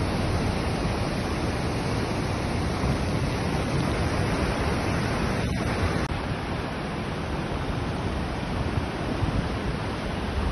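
Steady rush of floodwater from the overflowing Munzur river pouring over the road, with low wind rumble on the microphone.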